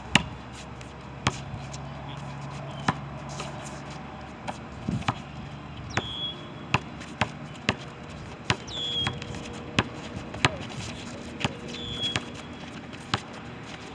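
A basketball being dribbled and bounced on an outdoor concrete court: sharp single bounces at an uneven pace, roughly one a second.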